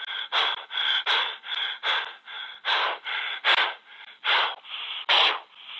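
A person breathing hard in quick, loud gasps, about two breaths a second, heard over a phone line.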